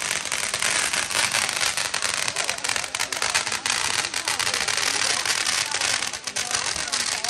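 Fireworks crackling continuously: a dense run of rapid sharp pops and crackles with no pause.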